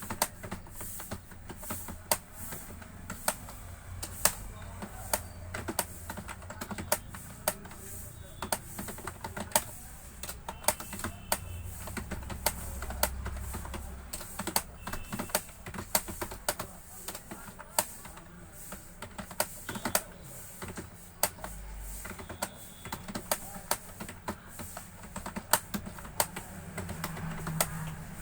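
Computer keyboard being typed on steadily during a typing speed test: rapid, uneven keystroke clicks, several a second.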